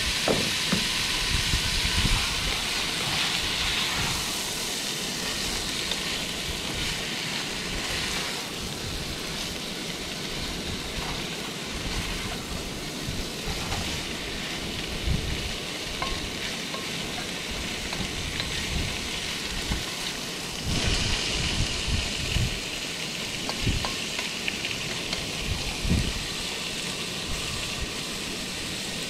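Onion, capsicum and fish in curry paste sizzling in a pot on a portable gas camp stove: a steady frying hiss, with short knocks as a spatula stirs the pot now and then.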